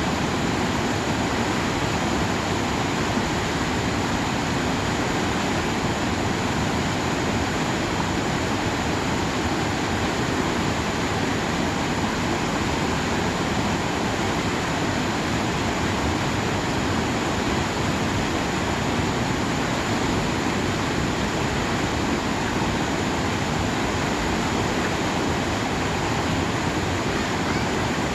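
Swollen mountain stream rushing, a steady, unbroken sound of running water.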